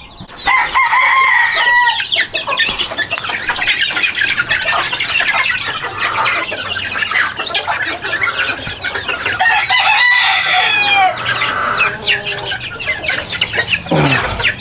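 Gamefowl chickens: many chicks peeping continuously while hens cluck, with longer, drawn-out calls about half a second in and again around ten seconds in.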